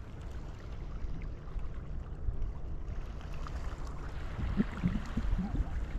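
Steady low outdoor rumble of wind and moving tidal water, with a few faint brief sounds about three-quarters of the way through.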